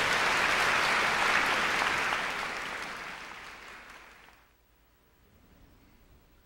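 Audience applause, steady at first and then fading away, gone by about four and a half seconds in.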